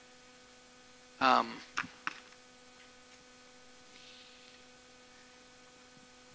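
Steady electrical mains hum over low room tone, with a brief vocal sound and two small clicks just after a second in. About four seconds in there is a faint rustle of paper being handled and folded.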